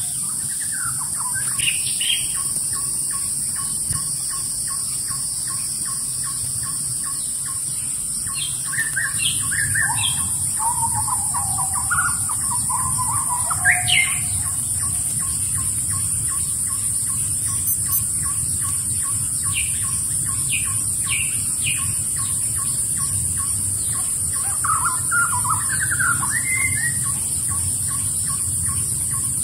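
Wild birds chirping and calling in short bursts: a few seconds in, in a busier cluster near the middle, and again toward the end. Under them runs a steady high-pitched hiss.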